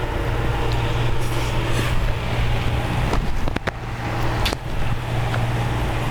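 Steady low hum with a few sharp clicks of someone eating, between about three and four and a half seconds in.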